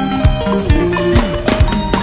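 Sungura band music: a drum kit beat under a moving bass line and quick plucked guitar notes.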